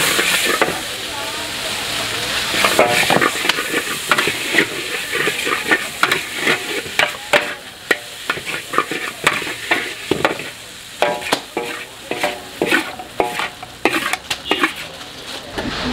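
Noodles sizzling in a hot wok while a metal spatula stir-fries them, scraping and clanking against the wok; the knocks come in quick runs, busier in the second half.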